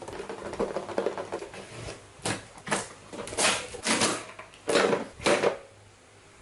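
Cardboard box being torn open by hand: rustling and scraping as it is handled, then about six short ripping tears of the cardboard, one after another.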